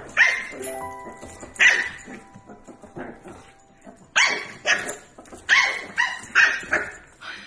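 A puppy yapping in short, sharp, high-pitched barks, about eight in all: one near the start, one a little later, and a quick run of them in the second half, over background music.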